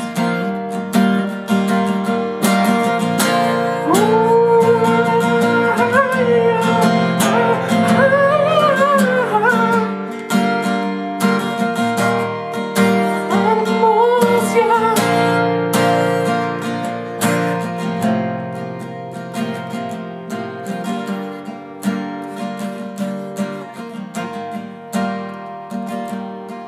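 Acoustic guitar strumming chords. A wavering wordless melody line sits over it twice in the middle, and the playing gets quieter over the last several seconds.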